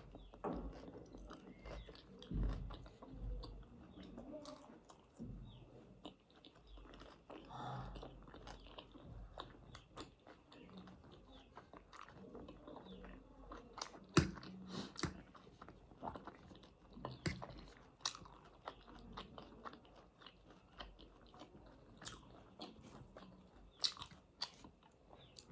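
A person chewing and biting food close to the microphone, with scattered crunches and sharp wet mouth clicks: mukbang-style eating of pork and noodles.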